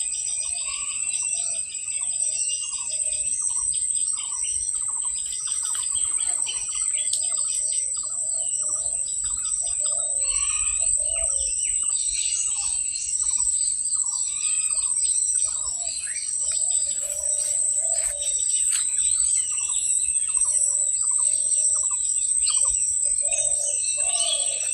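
Birds chirping and calling over and over, with a steady high insect drone underneath.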